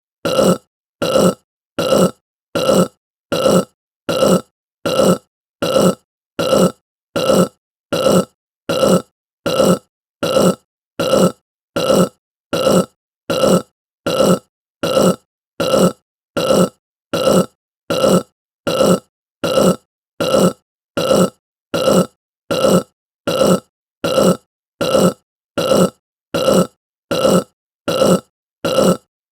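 A person burping: short burps repeated at an even pace, about three every two seconds, each one alike.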